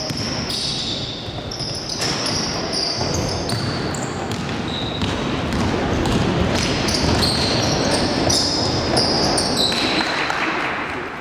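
Basketball game play on a gym court: the ball bouncing on the floor and sneakers squeaking in many short, high-pitched chirps as players run and cut.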